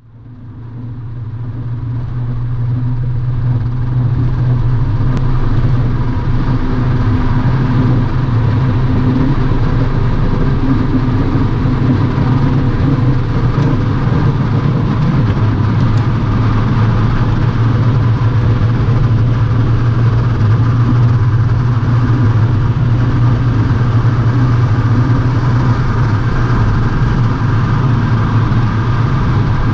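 Diesel car cruising at a steady speed on the highway, heard from inside the cabin: an even low engine drone with tyre and road noise. It fades in over the first few seconds.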